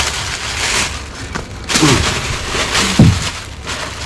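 Plastic bags and food packaging rustling and crinkling as someone rummages through a dumpster, with two short low thumps about two and three seconds in, the second one louder.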